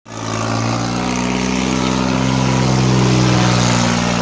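Diesel engine of a modified Swaraj 855 tractor running loud and steady, holding one pitch.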